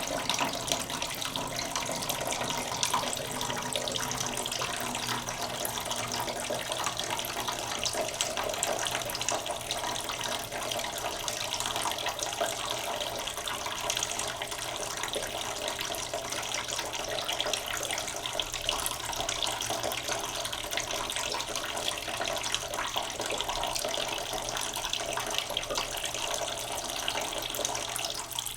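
Tap water running slowly into a cooking pot in a sink: a steady, unbroken stream of splashing water.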